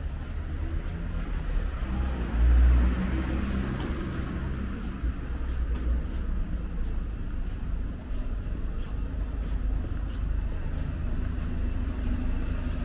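Road traffic over a steady low rumble, with a vehicle passing close by about two to three seconds in.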